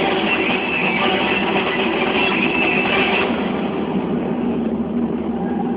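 Recorded music for a dance routine playing loudly over the venue's loudspeakers; its brighter upper part drops away about three seconds in.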